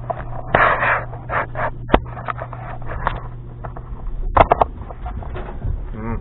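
Handling noises: scattered clicks, knocks and rustling, with a short scuffle about half a second in and a cluster of knocks past the middle, over a steady low hum.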